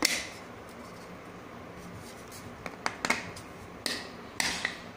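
Hard plastic of a 3D-printed snap-fit enclosure being handled and worked at its tight-fitting lid: a few short clicks and scrapes, mostly in the second half.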